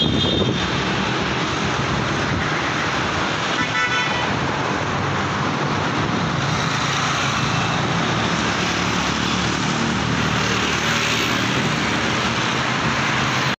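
Steady road traffic noise mixed with wind rushing over the microphone of a moving bicycle, with a short vehicle horn toot about four seconds in.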